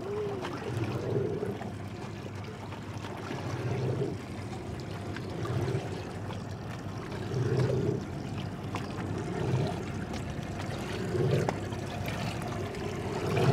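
Small waves lapping and sloshing against the hull of a drifting boat, swelling unevenly every second or two.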